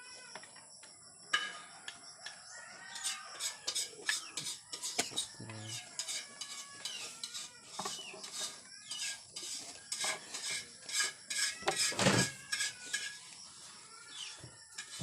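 Chickens clucking, with repeated sharp clicks and scrapes of hand tools on hard material, loudest about twelve seconds in.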